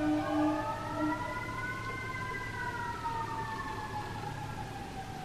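Siren wailing outside, its pitch slowly rising and then falling.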